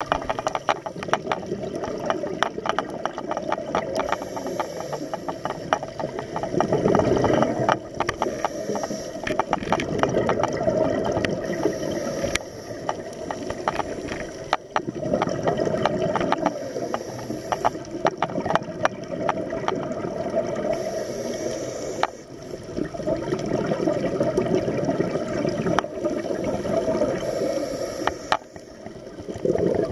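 Scuba diver breathing through a regulator underwater: a short high hiss on each inhale and a low gurgling rush of exhaled bubbles, repeating every few seconds. Sharp clicks crackle throughout.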